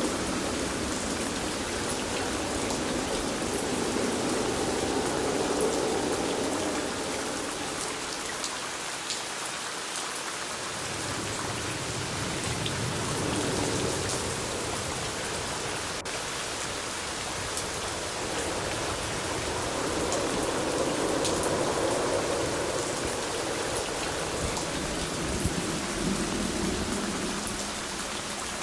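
Steady rain falling on a surface, with many individual drops ticking through an even hiss. A low rumble swells and fades twice, near the start and again past the middle.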